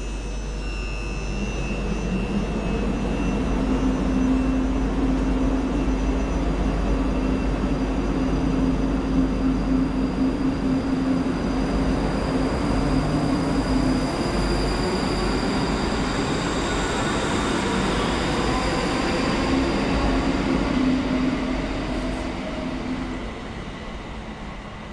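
ScotRail electric multiple-unit train departing the station and passing close by. Its motors whine in steady high tones over the rumble of the wheels on the rails; the sound builds as the carriages go past, then fades near the end as the train leaves.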